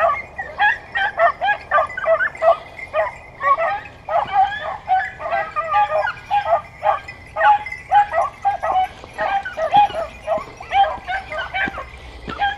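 Hunting dogs yelping in quick, repeated high cries, two or three a second without a break, typical of hounds giving tongue on a scent during a hunt.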